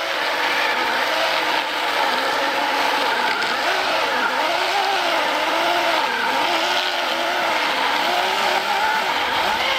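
Oregon battery-powered self-sharpening chainsaw cutting dry firewood, its freshly sharpened chain running steadily while the motor's whine dips and recovers in pitch as the cut loads it.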